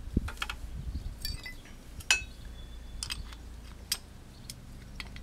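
Light metallic clinks and clicks, roughly a second apart, from a pocket-bike carburetor and a small hand tool being handled while the carb is fitted. The loudest, sharpest clink comes about two seconds in, with a short ringing tone after it.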